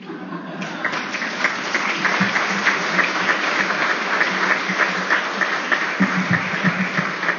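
Audience applauding loudly, many hands clapping at once.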